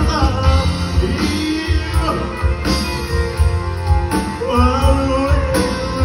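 Live rock and roll band playing with drums and electric guitar, a male singer's voice carried over the PA along with a steady beat.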